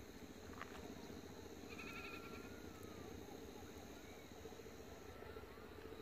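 A faint, quavering animal bleat, heard once about two seconds in, over a steady low background hum.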